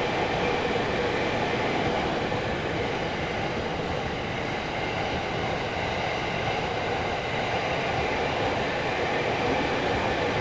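A Yamanote Line E231-series commuter train running past close by: a loud, steady noise of wheels on rails that holds even throughout.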